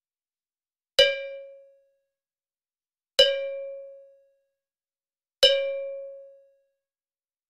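Three identical struck, bell-like percussive notes about two seconds apart, each ringing briefly and fading within a second, with silence between them: a repeated sound effect.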